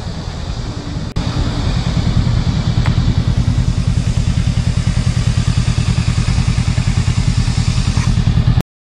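Honda Rebel 500's parallel-twin engine running at idle close by, a steady, rapid exhaust pulse, louder from about a second in. It cuts off abruptly near the end.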